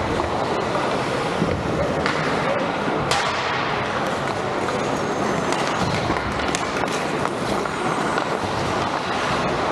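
Ice hockey rink ambience: a steady murmur of voices with skates scraping on the ice and a few sharp clacks.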